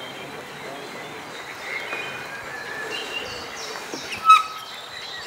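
Small birds chirping and calling in the trees over a steady outdoor background hiss, with one loud, short, sharp call about four seconds in.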